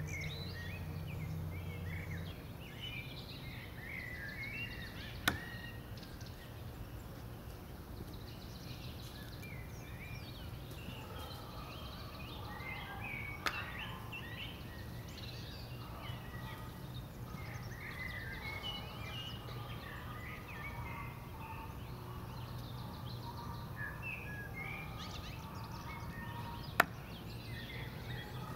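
Small birds chirping and calling throughout, over a steady low hum. Three sharp thwacks stand out, about five seconds in, in the middle, and near the end, the last the loudest: steel throwing knives striking a wooden target board on a tree trunk.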